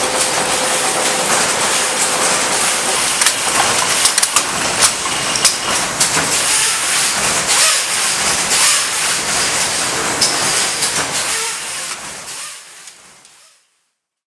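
Industrial knitting machinery running: a dense, steady hissing clatter with scattered sharp clicks, fading out over the last couple of seconds.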